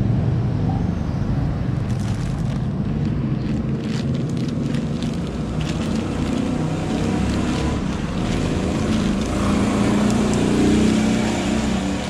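Motorcycle engine running steadily, swelling a little louder about ten seconds in, with scattered clicks.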